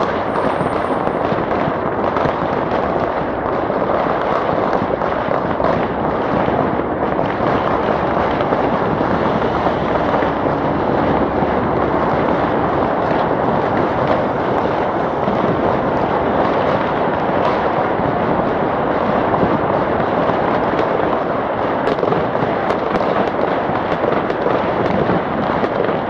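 Fireworks and firecrackers going off in a dense, unbroken crackle of countless small bangs, steady and loud throughout.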